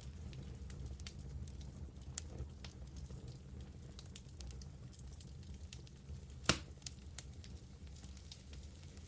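Wood fire burning in a fireplace: a steady low rumble of flames with scattered small crackles and one loud pop of the wood about six and a half seconds in.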